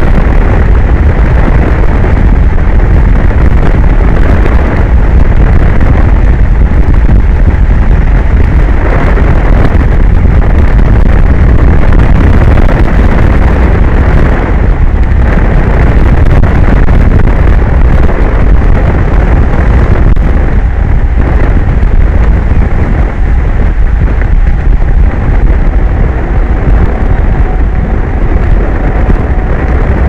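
Wind buffeting an exposed microphone: a loud, constant low rumble with no letup. A faint steady tone comes in about two-thirds of the way through.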